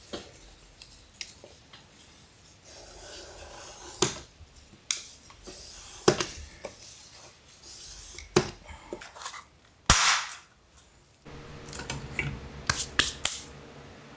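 Utility knife scoring a sun visor panel: short scraping strokes of the blade with clicks and knocks against the workbench, and a sharp crack about ten seconds in as the scored piece snaps off. A steady low hum comes in near the end.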